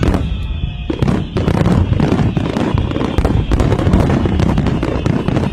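Fireworks display going off densely: many bangs and crackles in quick succession over a continuous deep rumble.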